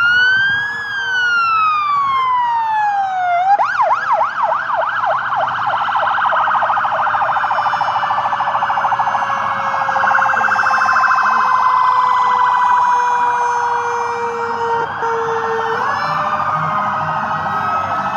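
Several police-car and ambulance sirens sounding together in a slow-moving convoy: overlapping rising-and-falling wails, a burst of fast warbling about three and a half seconds in, then long tones sliding slowly down before the wails return near the end.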